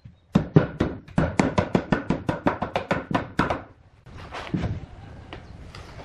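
A fast run of sharp knocks on wood, about six a second for some three seconds, then a few slower, softer knocks: hand work on a wooden piece, striking or chopping at it with a tool.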